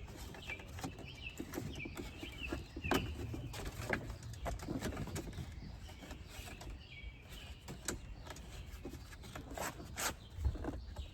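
Scattered sharp plastic clicks and knocks as the grille's retaining clips are pushed up and worked free, loudest about three, four and ten seconds in. A small bird chirps repeatedly in the background over a low steady outdoor rumble.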